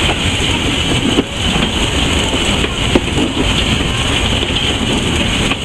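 Steam locomotive under way, heard from inside its cab: a loud, steady rush of running noise with a couple of sharp clicks.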